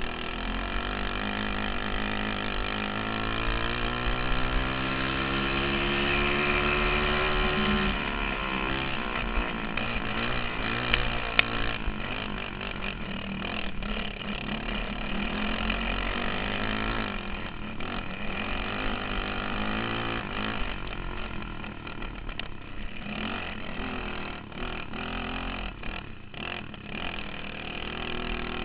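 A dirt kart's engine heard onboard, running hard. Its pitch climbs steadily for the first eight seconds or so, then falls away, and keeps rising and falling with the throttle for the rest of the lap.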